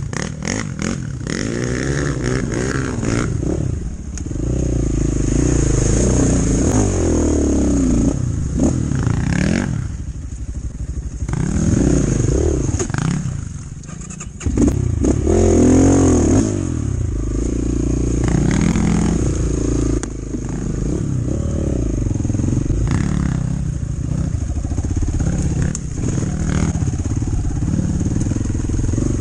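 Chinese enduro motorcycle engine running under way, its pitch rising and falling as the throttle opens and closes through the gears. Twice it drops away briefly, then picks up hard again.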